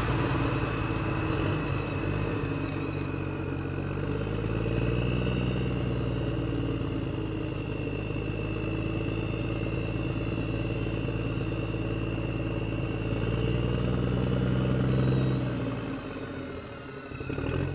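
Radio-controlled model tractor driving: a steady low drone with a high, thin motor whine over it, dying away near the end.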